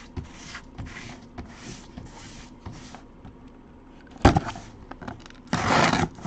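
Gloved hands handling a cardboard box: soft rubbing and scraping against the cardboard, a sharp knock about four seconds in, then a louder scrape lasting about half a second near the end.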